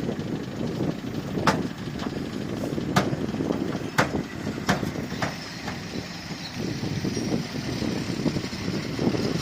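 Bulldozer's diesel engine running steadily, with five sharp knocks coming about a second apart in the first half.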